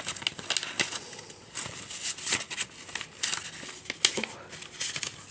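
Packs of decorative craft paper and their packaging being handled: an irregular run of crinkling and rustling with sharp crackles.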